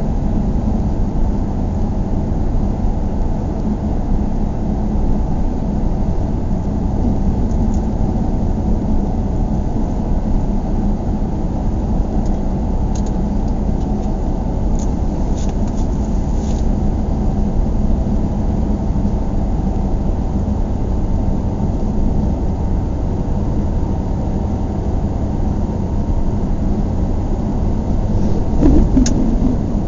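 Steady low rumble of a vehicle in motion, with a few faint ticks now and then.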